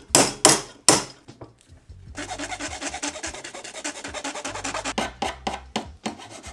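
Hand file rasping on a carbon fiber drone frame plate: three long strokes in the first second, then, after a short pause, a fast run of short strokes.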